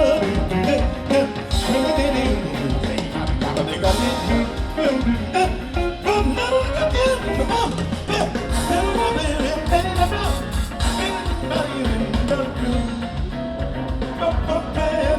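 Live band playing an upbeat Latin jazz mambo number with a steady beat.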